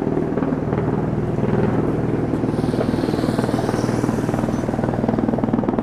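Steady, rapid mechanical pulsing from a running machine, with a faint high whine that rises and falls in the middle.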